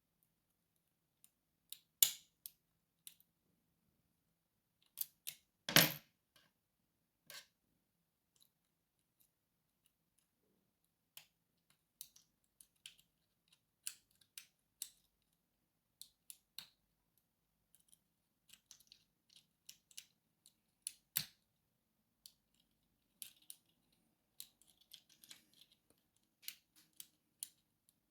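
Lock picking: a hook pick and tension wrench working in a lock, giving scattered small metallic clicks and scrapes. There are a few sharper knocks about two seconds in, near six seconds and around twenty-one seconds.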